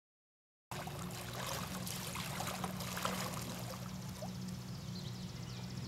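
Lakeside ambience: a steady wash of water-like noise with a low, steady hum under it, starting abruptly about a second in.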